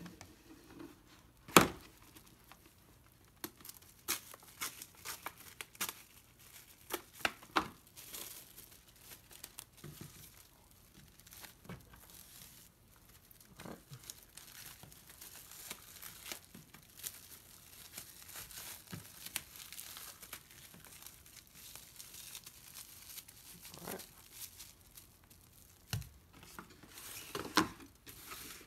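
Plastic cling wrap being pulled, torn and crinkled as it is pressed tightly around a foil-wrapped burger, in scattered crackles throughout. A single sharp snap about a second and a half in is the loudest sound.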